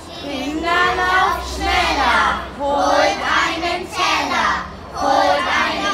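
A group of young children singing together unaccompanied, in phrases of about a second with short breaks between them.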